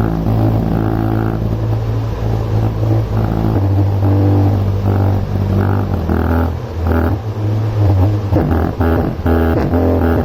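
Bass-heavy music played loud through a 4-ohm 30 W speaker driven by a TDA2030 bridge amplifier behind an LM324 subwoofer bass filter. Deep held bass notes dominate and shift pitch twice, with a plucked rhythmic line growing busier near the end.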